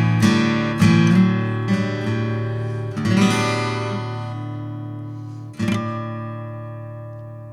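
Acoustic guitar outro: a few strummed chords, then a last chord strummed about three-quarters of the way through that rings on and slowly fades.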